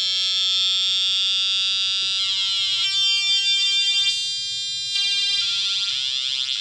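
Atari Punk Console, a two-555-timer square-wave synth circuit run at 9 V, buzzing through a small loudspeaker. Its pitch jumps in discrete steps a few times as the potentiometers are turned, rather than gliding.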